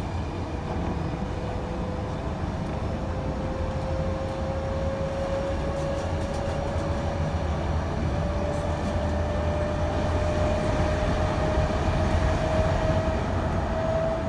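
Electric train pulling away and accelerating: the traction motor whine rises slowly and steadily in pitch over the rumble of the running gear, growing gradually louder.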